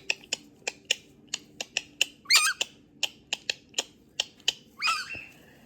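Galah cockatoo giving two short squawks with wavering pitch, about two seconds in and again near the end, among a quick, irregular run of sharp clicks.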